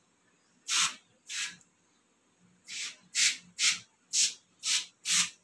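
Aerosol can of foaming kitchen cleaner sprayed in short hissing bursts: two, a brief pause, then six more at about two a second.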